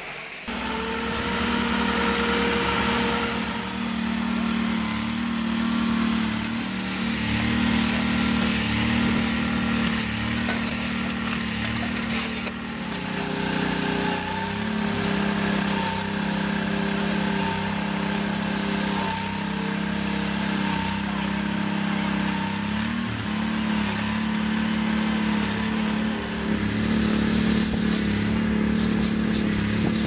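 Excavator engine running steadily while it works a rail-sleeper attachment. About 13 seconds in the sound changes to the small engine of a concrete kerb-extruding machine, running steadily as it lays kerb.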